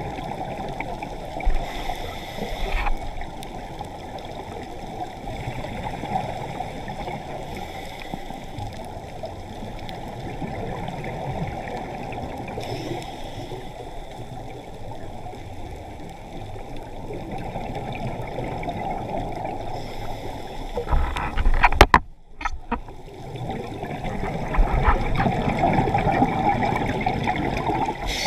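Muffled, steady rushing and gurgling of water, as heard through an underwater camera housing on a scuba dive. A sharp knock and a moment of dropout come about three-quarters of the way through, and the noise is louder after it.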